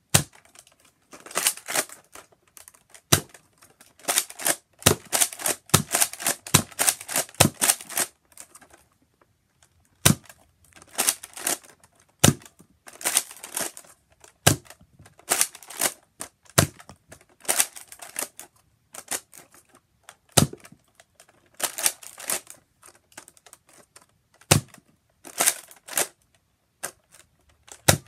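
Nerf Recon MKII spring-powered dart blaster being primed and fired over and over: clusters of rattling plastic clicks from the priming slide, with a sharp clack of a shot every two seconds or so and short pauses in between.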